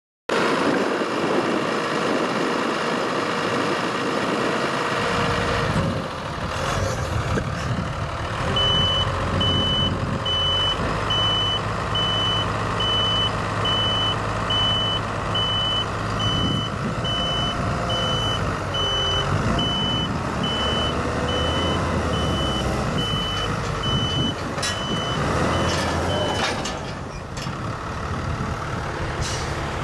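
Tractor engine running while a bale-stacking trailer is tipped up on end to stand a stack of big square straw bales. A reversing alarm beeps at one steady pitch, about twice a second, from a few seconds in until a few seconds before the end.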